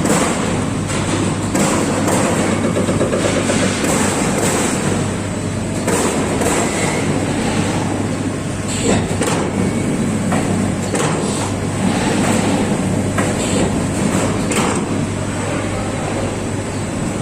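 CNC turret punch press (Amada Pega 357) running over a steady machine hum, its punch striking sheet metal again and again with sharp hits, irregularly about one or two a second.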